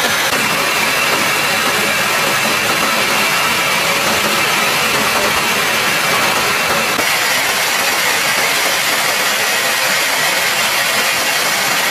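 Steady engine and airflow noise of a jet aircraft in flight, an even hiss with no letup; its pitch shifts slightly lower about seven seconds in.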